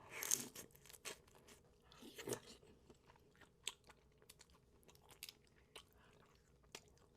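Close-miked mukbang eating: crunchy biting and chewing, with a short burst near the start and another about two seconds in, then scattered sharp crackling clicks as the food is chewed.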